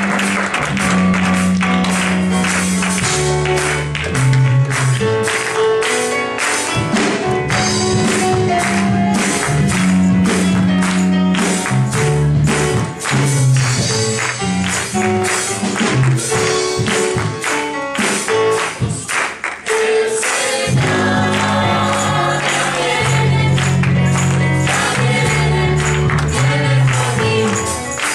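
Church choir singing a gospel song with accompaniment: a stepping bass line under the voices and a steady percussion beat.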